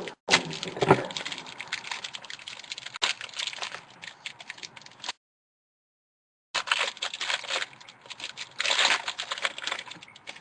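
Trading cards and their plastic and paper packaging being handled: dense crinkling and clicking of card stock and wrappers. The sound cuts out completely for about a second and a half midway, then resumes.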